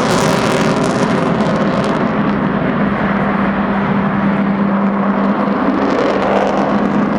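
Avro Vulcan's four Rolls-Royce Bristol Olympus jet engines at high power as the bomber climbs, a loud steady jet noise with a held low drone running through it.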